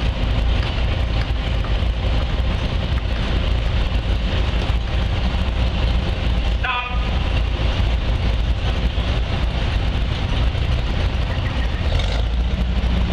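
Steady low rumble with a haze of outdoor background noise, and a brief wavering high-pitched call about halfway through.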